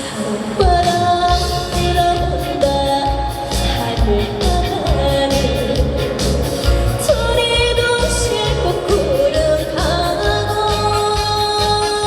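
A woman singing a trot song live over amplified accompaniment with a steady beat; her voice comes in about half a second in after an instrumental passage.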